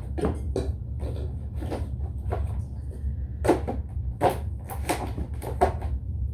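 Light knocks and clatter of small containers being handled and set down, about nine separate knocks at uneven intervals, the loudest in the second half, over a steady low hum.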